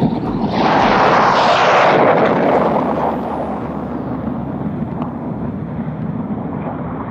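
BAC TSR-2's twin Bristol Siddeley Olympus afterburning turbojets at full take-off power as the aircraft lifts off and climbs away. The jet noise swells sharply about half a second in, is loudest for a second or so, then eases to a steadier, quieter rumble as the aircraft recedes.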